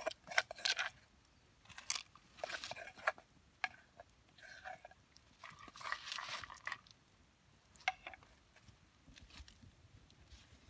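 A spoon stirring and scraping blood cockles in their shells, with the shells clattering, in several short bursts of scraping and clicking and quiet gaps between.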